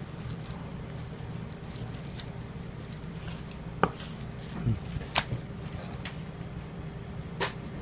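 Knife and gloved hands working a raw duck carcass on a plastic cutting board: soft handling sounds and three sharp taps on the board, about four, five and seven seconds in, over a steady low hum.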